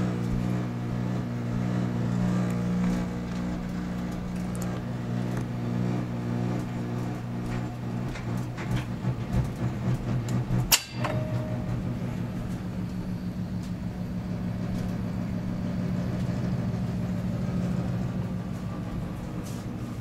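A Simplex pull-down fire alarm pull station is pulled, giving one sharp snap about eleven seconds in and a brief tone right after. A loud, steady electric buzz of low hum tones runs throughout and turns choppy after the pull.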